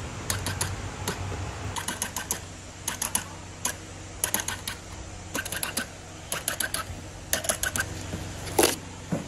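Hand-held fruit-label applicator clicking as it sticks labels onto mangoes: short runs of rapid clicks about once a second, with a steady low hum underneath.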